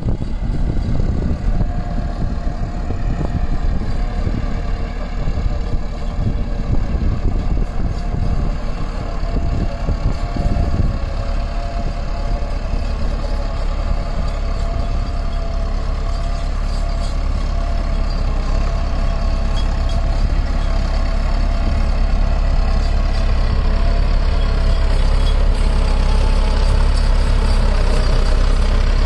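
Farm tractor's diesel engine running steadily under load as it drives a rotary tiller through wet mud. It grows gradually louder over the second half as the tractor comes closer.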